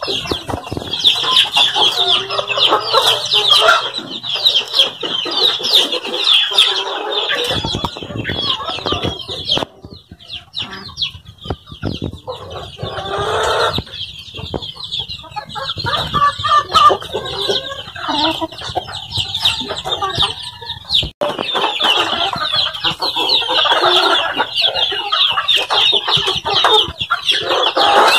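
Flock of native chickens clucking while feeding on vegetable leaves, over a dense, constant high peeping from many chicks.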